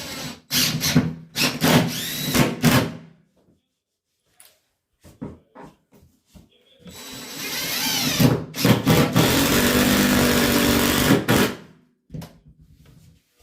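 Power drill driving 3-inch No. 14 wood screws through a toilet closet flange into a wooden subfloor. It runs in a few short trigger bursts over the first few seconds, then in one long run of about four seconds with the motor pitch rising and falling. It stops abruptly near the end.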